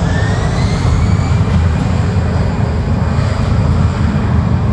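Jet engines of an Aer Lingus Airbus A320-family airliner running on the runway: a loud, steady low rumble, with a faint high whine that rises slightly in pitch during the first second or so.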